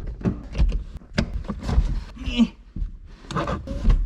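Irregular thumps, knocks and rustling of a person squeezing around in the cramped rear seat of a Peugeot RCZ coupé, with a few short grunts of effort.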